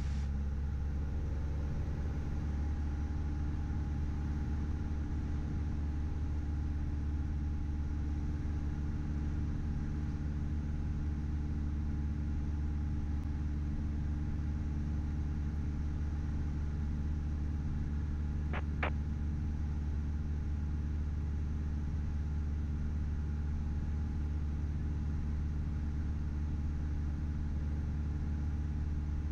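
Piper PA-28-161's four-cylinder Lycoming engine and propeller droning steadily at cruise power inside the cockpit. A pair of short clicks comes a little past halfway.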